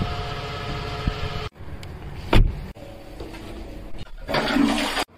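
Car noise in several short clips cut together, with steady tones in the first second and a half and a brief loud thump about two and a half seconds in.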